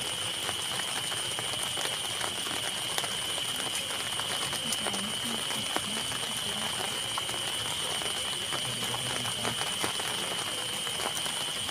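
Night insects trilling in one steady, unbroken high-pitched chorus, with a fainter, higher band above it. Scattered sharp clicks and crackles run throughout.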